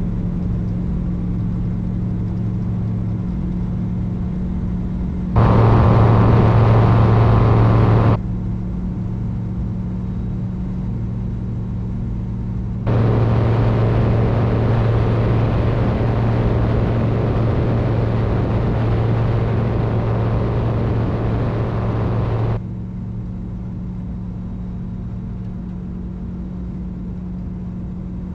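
BushCat light-sport airplane's engine running at full power during the takeoff roll and climb-out, a steady drone. Twice a louder rushing hiss switches on and off abruptly over it, the second time for about ten seconds.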